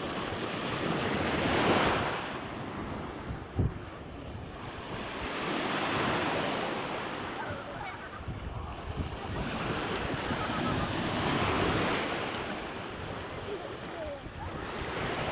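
Sea waves breaking and washing in, swelling and fading about every four to five seconds, with wind buffeting the microphone. A short thump about three and a half seconds in.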